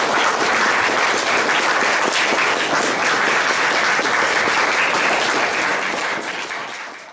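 Audience applauding, a dense spread of clapping that fades out near the end.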